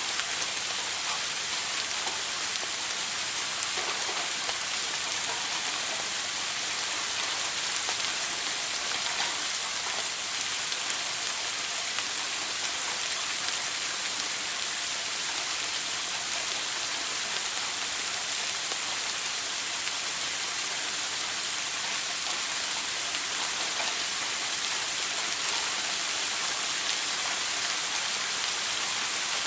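Shower running: a steady, even hiss of water spray falling, unchanging in level.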